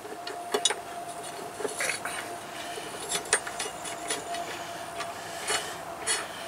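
Scattered light metallic clicks and scrapes as the washer and retaining nut are threaded back onto a riding mower's blade bolt by hand, over a faint steady hum.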